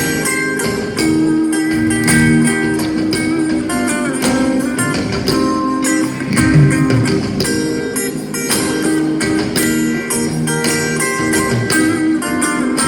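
A band playing a song, with guitar over a steady beat.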